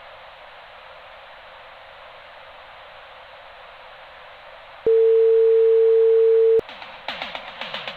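Steady hiss, band-limited like a telephone or radio line. About five seconds in, a single loud steady tone sounds for under two seconds and cuts off, and pop music starts right after it.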